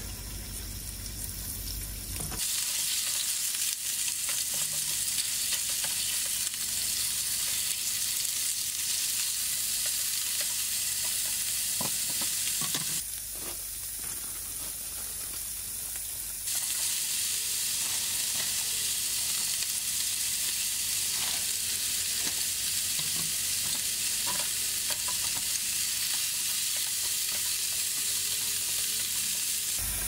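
Sliced pork sizzling as it stir-fries in a frying pan, a steady hiss that sets in about two seconds in, with a few light clicks. The sizzle drops away for a few seconds in the middle and then comes back.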